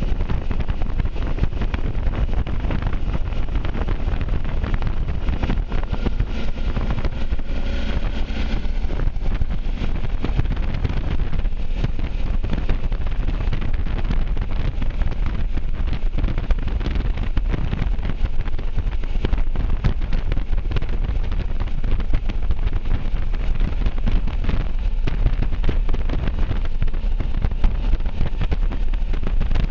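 Wind buffeting the microphone of a camera on a moving motorcycle, with the motorcycle's engine and road noise underneath as a steady low rumble.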